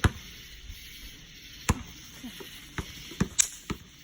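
Bang snaps (throw-down snappers) cracking one after another: about six sharp pops at irregular spacing, one right at the start and a cluster in the second half.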